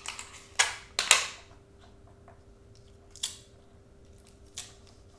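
Clear adhesive tape pulled off a desktop tape dispenser and torn, in a few short ripping bursts, the loudest about a second in, with weaker ones later.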